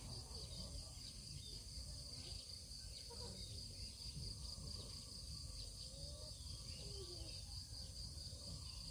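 Faint, steady high-pitched chirring of insects over a low background rumble.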